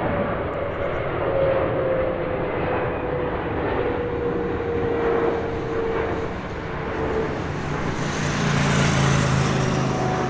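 Boeing 777F cargo jet on final approach, its GE90 turbofans giving a steady jet noise with a whine that slowly falls in pitch as it passes. The noise swells again from about eight seconds in, with a low rumble underneath.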